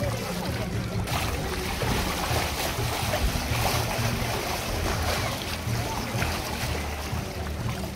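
Water sloshing and splashing in a shallow inflatable pool as children roll and walk inside inflatable water-walking balls, over a steady low rumble.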